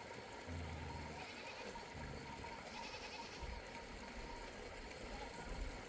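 Goat herd bleating faintly in the distance, with a few short low rumbles.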